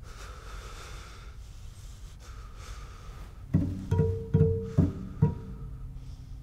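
Film score on low string instruments: a quiet stretch, then five plucked low notes about half a second apart, followed by a held low note.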